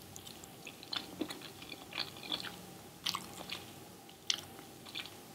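Close-miked mouth sounds of someone eating keto spaghetti made with Miracle (shirataki) noodles in meat sauce: soft wet chewing with scattered sharp little smacks and clicks, a few of them louder, about a second apart.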